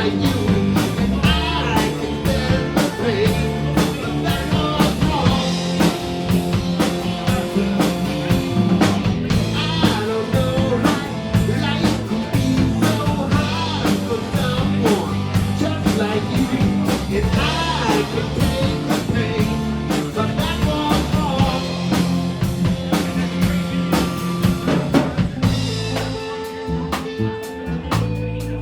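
A live blues-rock band playing, with electric guitar, bass and drum kit keeping a steady beat, and a wavering lead line above them.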